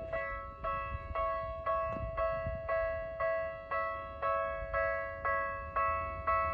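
Japanese level-crossing warning bell ringing steadily, about two strikes a second, each a bright chime that decays before the next. It is the crossing alarm that sounds while the barriers are down for an approaching train.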